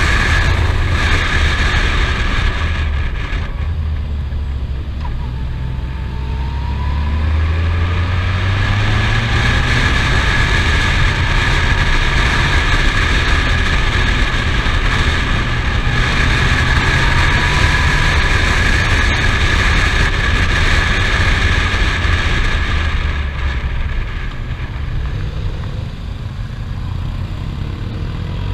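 Touring motorcycle engine running on the move, with steady wind rush over the helmet-mounted microphone. The engine pitch climbs as the bike accelerates, about five seconds in and again a little past the middle.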